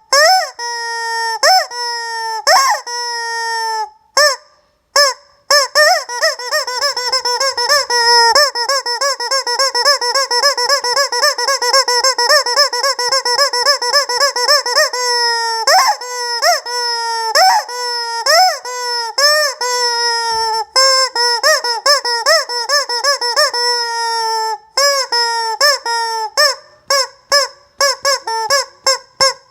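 Squeeze-toy rubber chicken honking over and over, one squeeze after another. It has a clear, high pitch and a fast run of short honks in the middle, with a couple of brief pauses.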